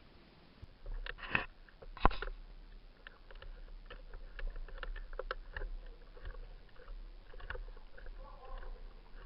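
Irregular scuffs and small clicks, with two sharp knocks about one and two seconds in, over a low rumble.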